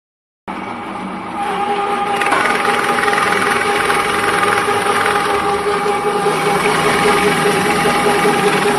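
Double roller extrusion granulator running steadily, a machine hum with a steady whine over a hiss as the rollers press out compound fertilizer granules. It starts about half a second in and grows louder about a second later.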